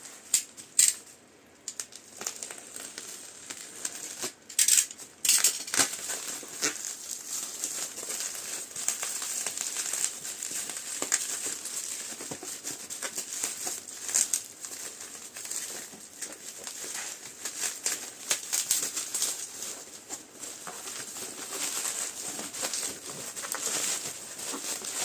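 Packaging being unwrapped by hand: wrapping crinkling and tearing in a continuous run of crackles, with the loudest rustles just under a second in and about five seconds in.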